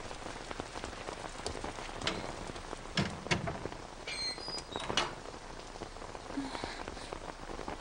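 Steady rain falling on pavement, with a few louder drops or taps about two, three and five seconds in.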